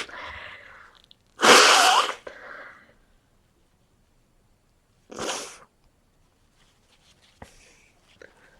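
A person with a head cold sneezing: one loud, drawn-out sneeze about a second and a half in, then a shorter, quieter sneeze about five seconds in.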